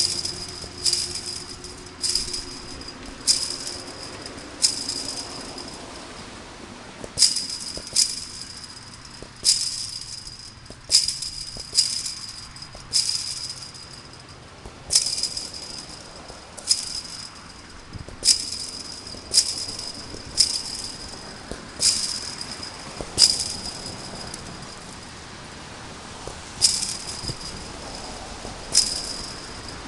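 Chain-link fence rattling as it is kicked, a short metallic jangle about once a second with a couple of brief pauses.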